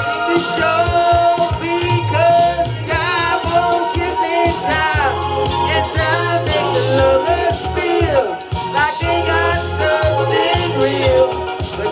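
Pop song: a lead vocalist singing with wavering, bending notes over a backing track with a steady bass line.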